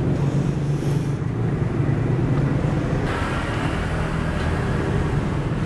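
Road traffic: vehicle engines running with a steady low hum, and a louder hiss of passing traffic from about three seconds in.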